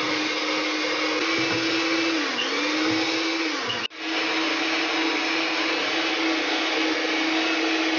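Westpoint electric hand mixer running steadily, its beaters whipping cream with icing sugar into frosting. The motor's pitch dips briefly about two and a half seconds in, and the sound breaks off for an instant about four seconds in before carrying on.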